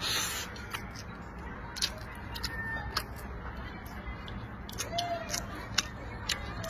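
Close-up eating sounds: a short slurp as a mouthful of rice and tofu is drawn in off chopsticks at the start, then chewing with many sharp, wet clicks.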